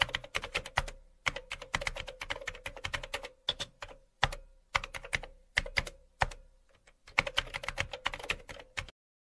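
Rapid, irregular clicking in quick runs with brief gaps, over a faint steady hum; it cuts off abruptly near the end.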